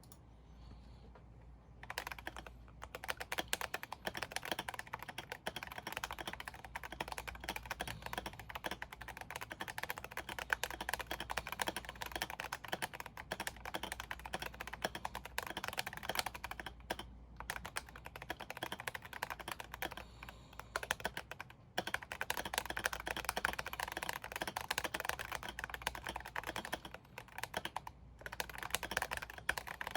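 Fast typing on a GMMK Pro mechanical keyboard fitted with unlubricated Gazzew Boba U4T tactile switches and stabilizers whose sound the owner was unhappy with: a dense, continuous run of key clacks starting about two seconds in, with a few short pauses.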